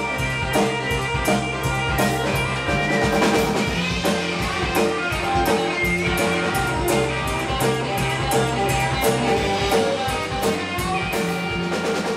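Live rock band playing, with electric guitar and a drum kit to the fore over keyboard.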